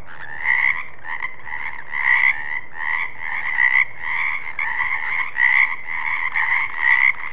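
Frog croaking over and over, about two calls a second, at an even, steady level.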